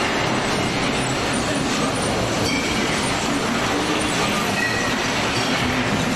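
Waste-processing machinery at a recycling centre running: a steady, dense mechanical rumble and rattle with a few faint, brief squeals.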